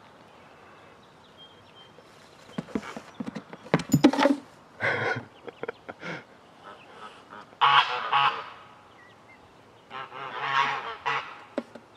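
Farm poultry calling in several loud bursts, about four, five, eight and eleven seconds in, with a few sharp knocks around four seconds in.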